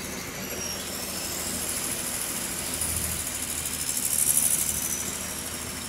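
Caterpillar 150 kVA diesel generator set running steadily after start-up, a low even hum with a high whine that rises and is loudest about four seconds in.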